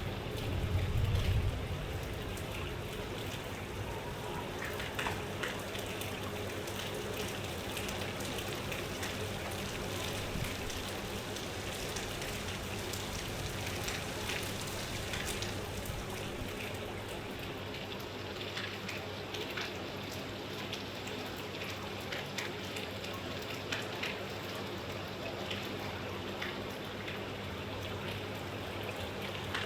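Steady rain falling, with many small drop ticks, and a brief low rumble about a second in.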